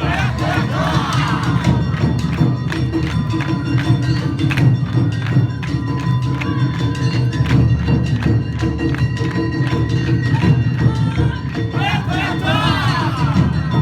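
Awa Odori festival street music from a passing dance troupe: dense, fast percussion of drums and metal gongs over held melodic tones, with group chanting about a second in and again near the end.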